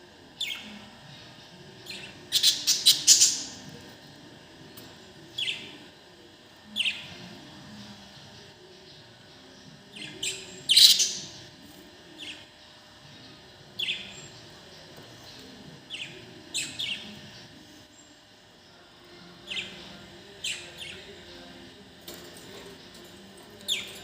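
Pet budgerigars chirping: short, sharp chirps every second or two, with louder runs of quick chirps about two to three seconds in and again about eleven seconds in.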